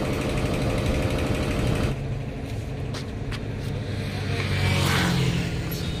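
Air-over-hydraulic bottle jack's air-driven pump chattering rapidly under the truck axle. It stops suddenly about two seconds in, leaving a low, steady motor hum that grows louder near the end.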